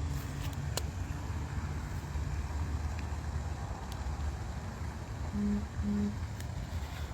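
Steady low hum of a running car heard from inside the cabin, with a pair of short, low beeps about five seconds in.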